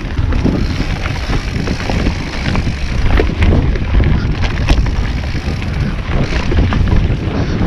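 Wind buffeting a helmet- or bike-mounted action camera's microphone, with scattered rattles and knocks of a mountain bike rolling over a rough dirt trail.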